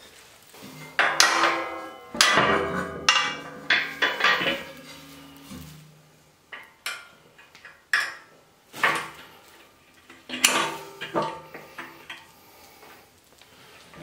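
Steel pallet forks and their quick-attach mounting plate clanking as a retaining pin and clip are worked into the fork bracket: a string of sharp metal knocks, the first few left ringing for a few seconds.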